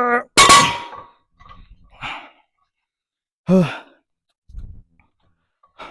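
A man's strained groan, then a loud exhale and a few heavy breaths and sighs, one falling in pitch midway. He is out of breath from a set of Romanian deadlifts. A short low thud comes about two-thirds of the way in.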